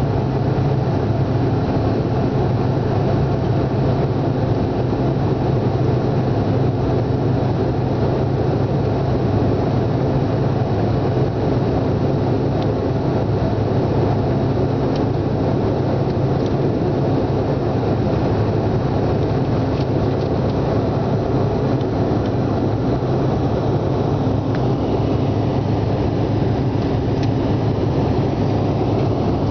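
Steady airliner cabin noise during the climb after takeoff: the engines' drone and rushing air, an even low hum that stays unchanged throughout.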